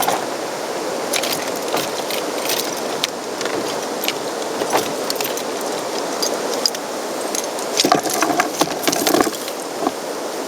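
A metal kayak anchor and its fittings clinking and rattling as they are picked up and handled, with busier clusters of clicks near the start and again near the end, over a steady background hiss.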